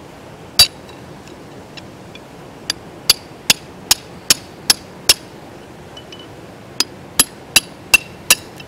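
Hammer striking a metal crevicing tool held in a crack in bedrock, sharp ringing metal-on-metal clinks: one blow, then a steady run of seven at about two and a half a second, a short pause, and five more near the end. The tool is being driven into hard-packed gravel in the crevice to break it loose.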